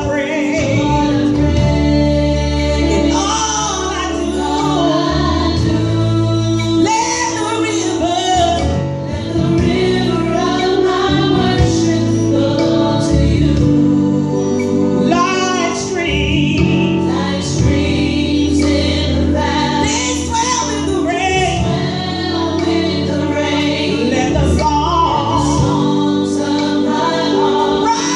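Gospel music: a woman singing a melody over sustained instrumental accompaniment.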